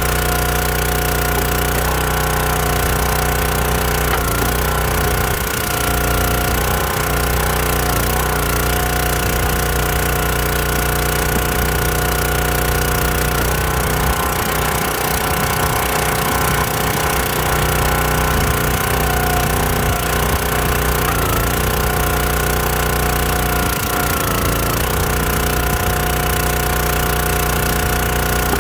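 Small gas engine of a Countyline 25-ton hydraulic log splitter running steadily at speed, its note shifting briefly several times as the splitter works logs.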